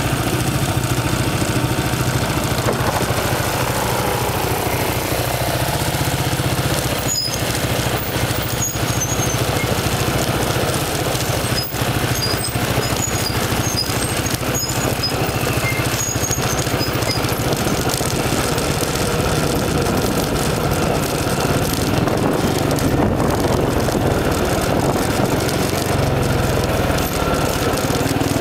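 ATV engine running steadily as the quad rides along a rough dirt trail, heard up close from its front rack.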